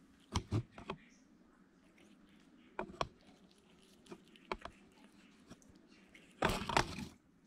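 A domestic cat eating and licking, a few short wet clicks of chewing and licking scattered through, with a louder burst of sound near the end.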